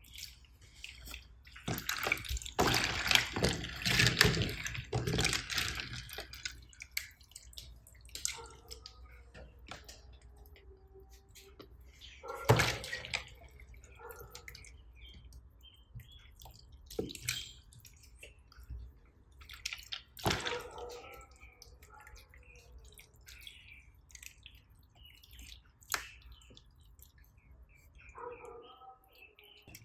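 Slime being mixed and squished: wet, sticky squelching and crackling, dense from about two to six seconds in, then scattered single pops and clicks.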